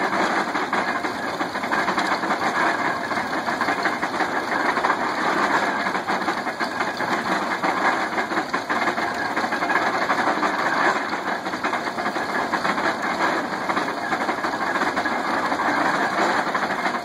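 Early-1900s International Harvester hay press working, driven by a 1953 Farmall Super C tractor's four-cylinder engine: a steady, dense mechanical clatter with the tractor engine running under it.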